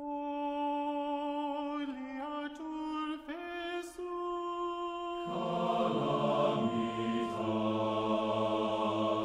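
Soundtrack music of slow, wordless chant-like singing. A single held vocal line steps between long notes, and about five seconds in lower voices join it in a fuller, choir-like chord.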